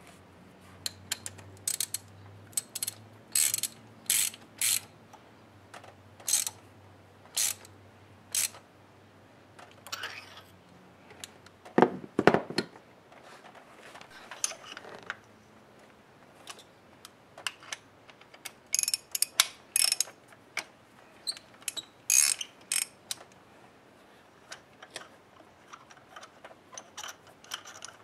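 Hand socket ratchet clicking in short bursts while working on the spark plugs of a Toyota Sienna's engine. There is one louder clunk about twelve seconds in.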